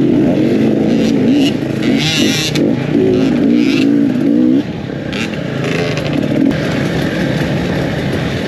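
Dirt bike engine revving up and down as it is ridden, its pitch rising and falling again and again. About halfway through the throttle closes and the engine drops to a quieter, steadier running.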